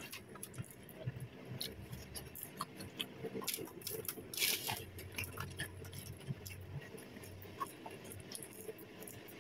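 Quiet eating sounds: light crinkles and clicks of aluminium foil as French fries are picked off it by hand, with a brief louder rustle about four and a half seconds in, and soft chewing.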